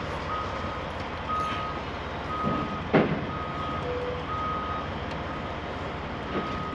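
Vehicle backup alarm beeping about once a second, one steady pitch, pausing briefly and starting again near the end. A single sharp knock about three seconds in is the loudest moment.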